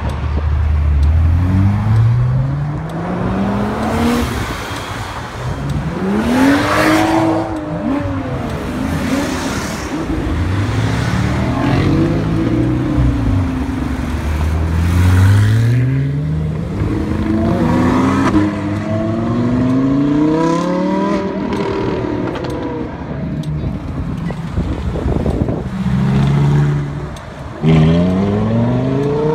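Several supercars accelerating hard one after another, among them a Porsche 911 and an Audi R8. Each engine climbs steeply in pitch, drops briefly at an upshift and climbs again.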